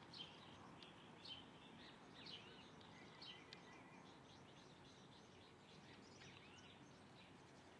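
Faint, scattered bird chirps: a string of short calls in the first few seconds and a few more a little after the middle, over low steady background noise.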